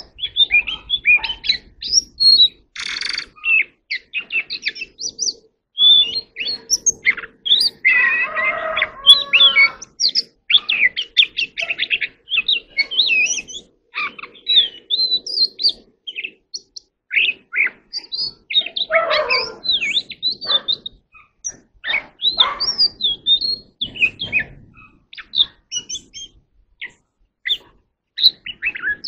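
Oriental magpie-robin singing a long, varied song of short whistled notes and quick glides, with a few harsher, raspy notes around a third of the way in and again past the middle.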